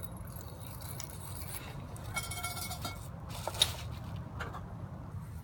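A single sharp click about three and a half seconds in, the switch of a head-mounted flashlight being turned on, over a steady low outdoor rumble. A short buzzing tone sounds a little over two seconds in.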